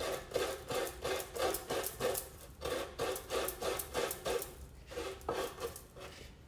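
Fresh coconut half being scraped on a traditional coconut grater's toothed blade: quick, even rasping strokes, about four a second, with a couple of short pauses.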